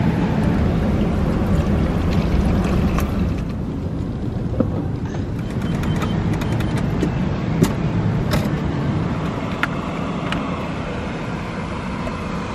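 Steady rushing noise from small electric ventilation fans in a camper van, with a few sharp clicks as switches on the fans are pressed.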